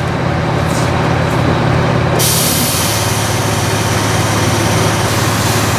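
A coach's engine idling with a steady low hum; about two seconds in, a steady hiss of compressed air starts and keeps going.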